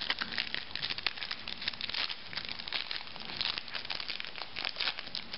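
Foil wrapper of a Yu-Gi-Oh! Order of Chaos booster pack crinkling as it is handled and torn open: a run of quick, irregular crackles.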